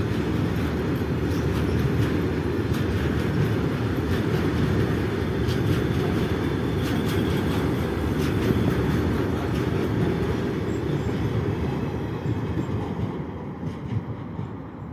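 A freight train of BTPN tank wagons rolling past: a steady rumble of wheels on rail with scattered clicks, fading away near the end.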